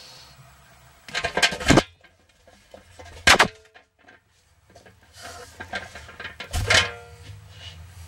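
A Centralux central vacuum's running noise dies away in the first second. Then comes a run of loud plastic clatters and knocks as the canister holding the camera is handled and opened, with one sharp clang about three seconds in and more knocking and rustling near the end.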